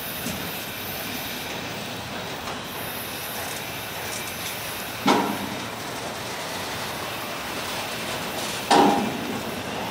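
Autorack freight cars rolling past, a steady rumble and hiss of steel wheels on rail, broken by two sharp knocks: one about halfway through and a louder one near the end.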